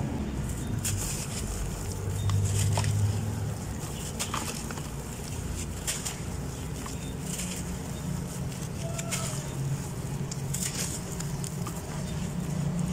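A dry, crumbly dirt block being broken apart by hand, with crumbs and dry dust pouring into a shallow tub of water: intermittent crunching and rustling strokes every second or two. A steady low hum runs underneath.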